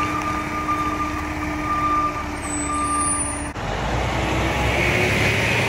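Peterbilt 520 garbage truck with a McNeilus ZR side-loader body running, its engine noise carrying a steady whine. About three and a half seconds in the sound changes abruptly to a deeper engine rumble, and a hiss of air follows near the end.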